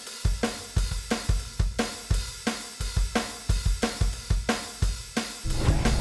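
Music on a drum kit: a fast, steady beat of kick, snare and cymbal hits, about three a second. A louder, fuller part with a held bass note comes in near the end.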